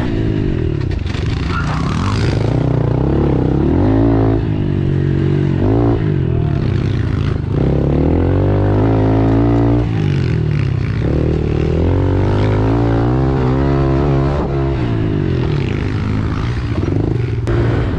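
Small four-stroke pit bike engine being ridden, its pitch climbing and dropping again several times as the throttle opens and closes and it shifts through the gears.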